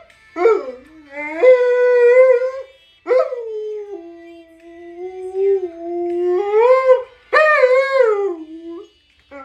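Alaskan malamute "talking" in howl-like, wavering calls: a short call, a held one, then a long howl that dips and rises again before falling away. It mimics speech; the captions render it as "mama hao" (hello mama).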